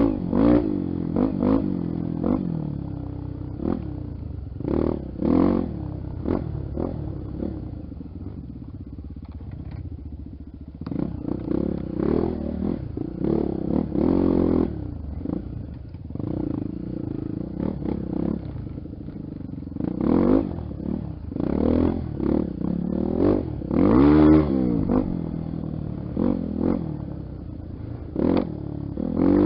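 Honda XR 250 Tornado trail bike's single-cylinder four-stroke engine running off-road, the throttle opened and closed again and again so the pitch rises and falls in short bursts, easing off for a few seconds about a third of the way in.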